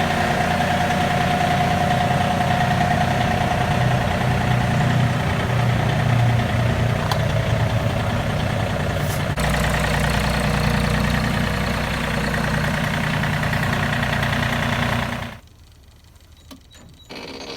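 Tractor engine running steadily, then stopping abruptly about fifteen seconds in.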